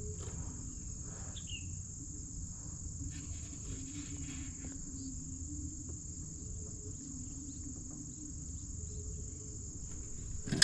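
Crickets chirping in a steady, high-pitched chorus over a low rumble, with a sharp knock at the very end.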